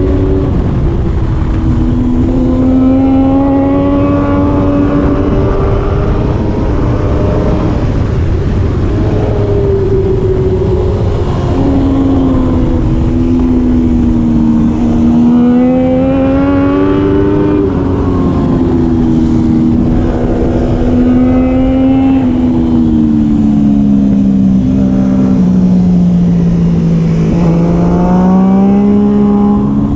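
Triumph Daytona 675R's three-cylinder engine at racing speed, its note rising and falling repeatedly as it accelerates and slows through the corners, over a steady rush of noise.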